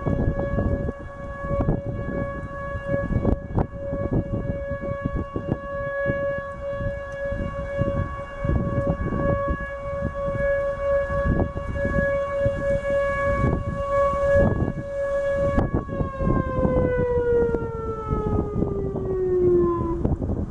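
Whelen 2910 electronic outdoor warning siren sounding a steady tone during its monthly test, then falling steadily in pitch as it winds down over the last few seconds. Wind rumbles on the microphone underneath.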